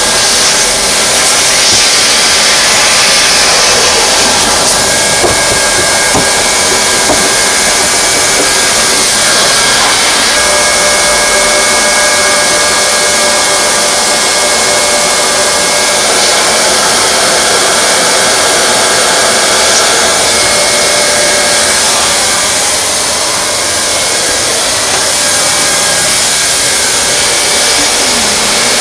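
Hot-air plastic welding gun blowing steadily as it heat-welds a TPO roofing membrane seam, its fan running with a faint steady whine.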